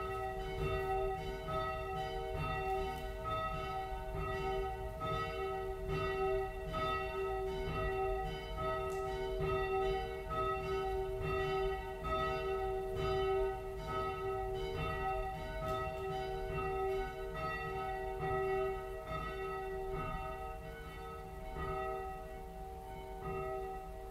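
Church bells ringing, a steady run of overlapping strikes about once a second with a long ringing hum between them, growing fainter over the last few seconds.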